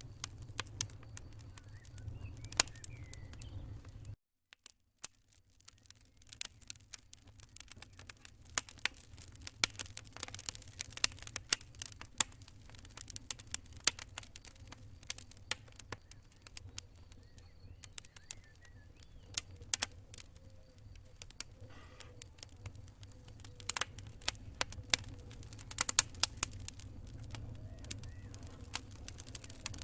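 Wood fire crackling in a fireplace: irregular sharp pops and snaps over a low steady rumble. About four seconds in the sound cuts out abruptly for about a second, then fades back in.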